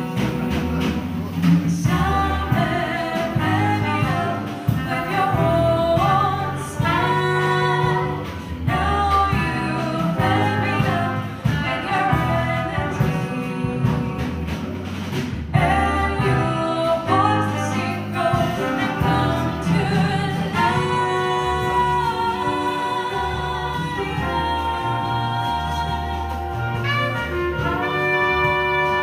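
Live jazz-soul band: a woman singing over a horn section of saxophones and trombone, with piano, bass and drums.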